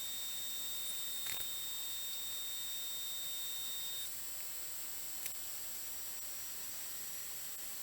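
Steady electronic hiss with a thin, steady high-pitched tone that cuts off about four seconds in, and two faint ticks.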